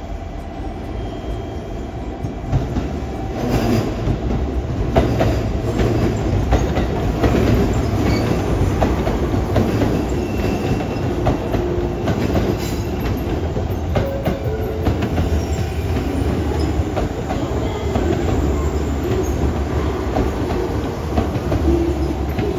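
Train running on the rails: a steady low rumble with wheels clattering over rail joints and brief faint squeals, growing louder over the first few seconds and then holding.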